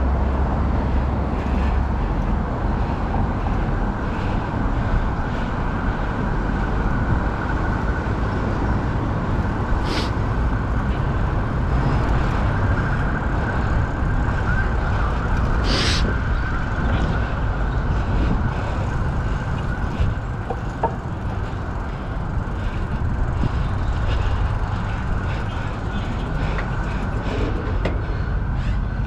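Steady wind rush on the microphone and rolling tyre noise from a bicycle being ridden, with two short sharp clicks about ten and sixteen seconds in.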